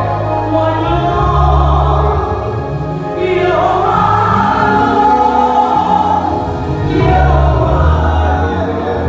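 Ewe gospel song: a woman's lead vocal through a microphone over backing music with a deep, sustained bass, with choir voices.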